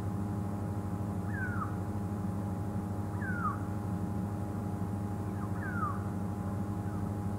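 Three short, falling, whistle-like animal calls, about two seconds apart, over a steady low hum.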